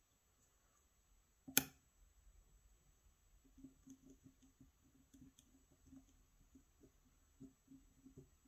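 Faint clicks of a hook pick and tension wrench working the pins of a pin-tumbler lock cylinder: one sharp click about a second and a half in, then a run of small soft ticks as the pins are probed.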